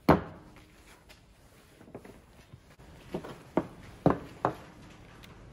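A sharp knock as the metal PCV breather valve is put down on the wooden workbench. About three seconds later come four lighter clicks and knocks of tools being handled as pliers are picked up.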